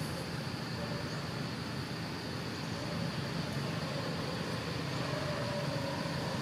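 Steady outdoor background noise: a low, even rumble with a thin, constant high-pitched hum on top.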